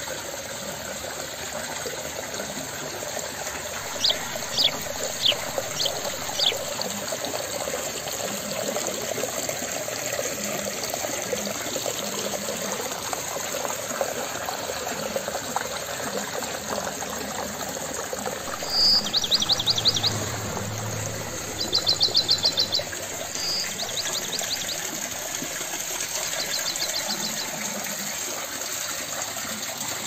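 Water from a homemade rock waterfall falling steadily into a small garden pond. A bird chirps over it: a few sharp high notes about four seconds in, then rapid high trills in the middle and more faintly near the end.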